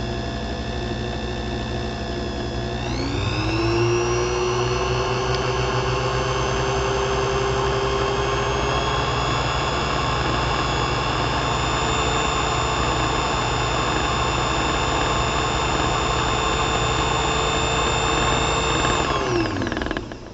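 Watchmaker's lathe motor running with a steady whine and low hum while a steel watch screw spins in its collet against a hand-held abrasive stone, slowly grinding the flat screw head toward a dome. The pitch steps up about three seconds in, then the motor winds down and stops near the end.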